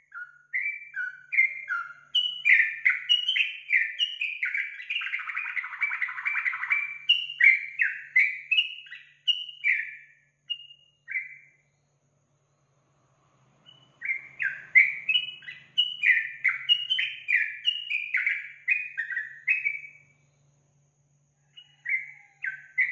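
Yellow-vented bulbul (trucukan) singing: a fast run of short chirping notes that stops a little after ten seconds. A second burst starts about two seconds later, and a few more notes come near the end.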